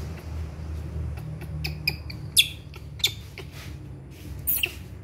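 A few short, high squeaks from a baby monkey, the loudest about two and a half and three seconds in, over a low steady hum.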